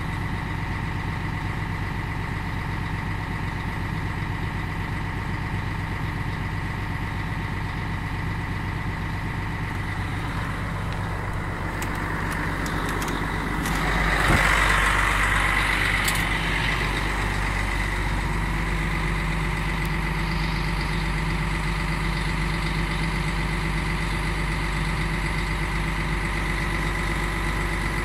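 Volvo FH12 dump truck's diesel engine idling steadily, with a short burst of knocks and rustling about halfway through.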